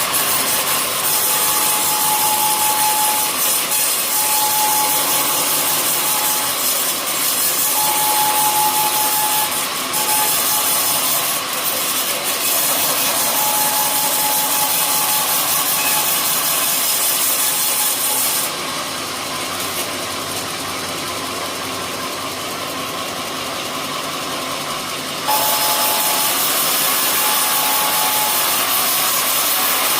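Sawmill blade cutting lengthwise through an old coconut palm trunk: a steady, loud rasping noise with a high whine that comes and goes. About 18 seconds in the sound turns thinner and somewhat quieter for about seven seconds, then the full cutting sound returns.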